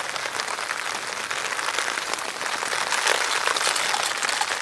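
Rain pattering steadily on a nylon tent fly, heard from inside the tent.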